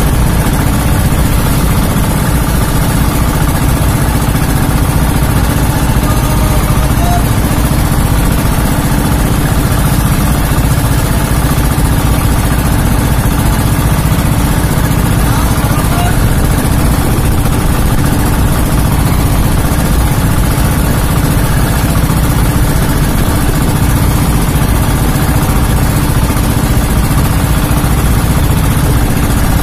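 Outrigger fishing boat's engine running steadily under way, a constant low drone.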